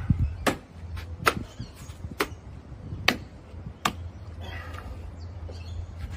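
Six sharp knocks at uneven intervals over about four seconds, from tapping on the quoin blocks as they are fitted. A short scraping rustle follows, over a steady low hum.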